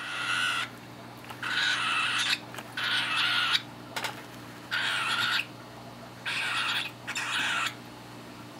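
Young cockatiel making its harsh, raspy feeding noise while eating pasta: about six separate bursts, each under a second long.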